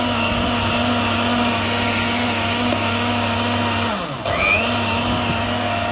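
Countertop electric blender running steadily, blending mango shake. About four seconds in, the motor winds down, is switched straight back on and spins up again, then stops near the end.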